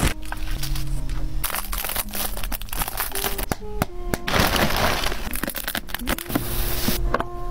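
Plastic packaging crinkling and rustling in several bursts as mailer bags and air-cushion wrapping are handled, with clicks and taps, over soft background music.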